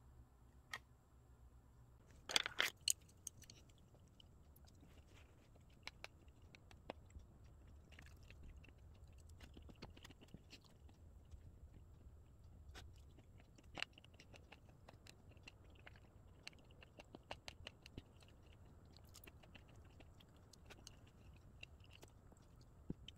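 Someone eating: wooden chopsticks clicking against the dishes, with quiet chewing. A quick cluster of louder clicks comes a couple of seconds in.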